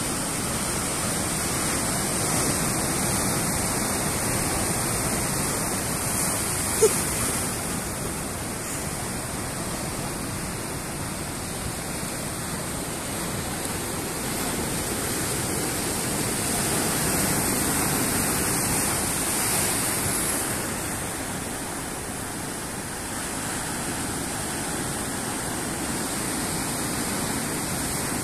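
Sea surf breaking and washing among the rocks of a rocky shore: a steady rushing that swells a little past the middle. There is one brief short sound about seven seconds in.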